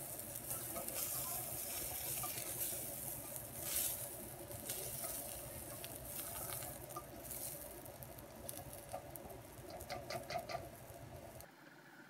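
Chanterelle mushrooms, onion and chilies sizzling in oil in a wok while a spatula stirs and scrapes through them, with a few quick clicks of the spatula against the pan about ten seconds in. The sizzle drops away abruptly near the end.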